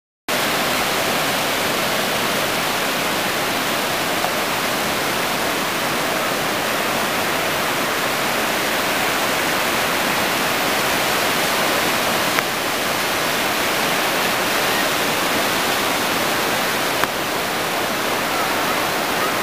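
Ocean surf breaking on a sandy beach: a steady, even rush that starts suddenly out of silence just after the start, with three faint clicks spread through it.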